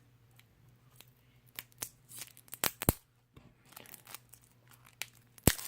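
Unboxing knife cutting and tearing open the wrapping on a pack of cards: scattered small clicks and short rips, the loudest a little under three seconds in and again just before the end.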